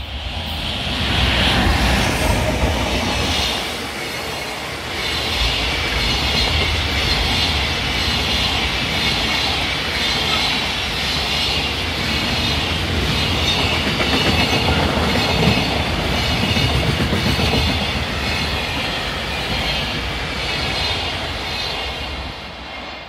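Freight train hauled by an EF210 electric locomotive passing close by: a steady rumble and clatter of wheels over the rails with a high whine above it, loud throughout and easing slightly near the end.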